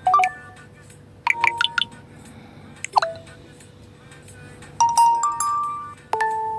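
A Nokia mobile phone playing a run of short electronic tones: five different brief chimes and jingles a second or two apart, one of them sliding down in pitch. These are the phone's message and alert tones being previewed one after another.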